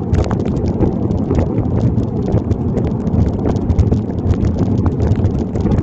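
Heavy rain drops tapping irregularly on a waterproof phone bag on bicycle handlebars, many sharp ticks, over a steady low rumble of riding through the rain.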